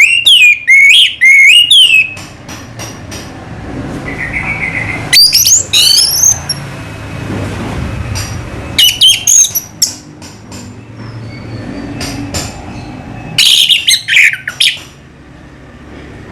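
Orange-headed thrush singing in short bursts of rapid, sliding whistled notes, four phrases separated by pauses, over a low background rumble.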